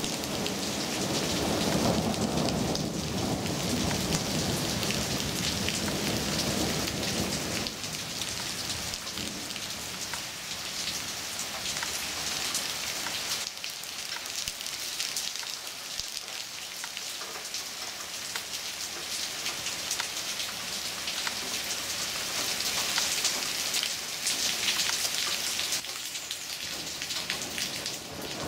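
Heavy thunderstorm rain pouring onto tree leaves: a dense, steady hiss of drops. A low rumble of thunder runs under it for about the first eight seconds, then fades.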